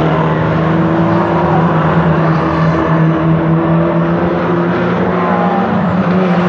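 Lightning Rods saloon race cars' engines running at speed as the pack laps an oval track, a steady mix of engine notes.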